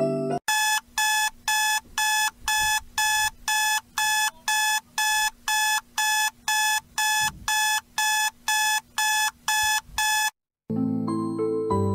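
Electronic alarm clock beeping, about two high beeps a second, cutting off suddenly near the end. Soft piano music starts again right after.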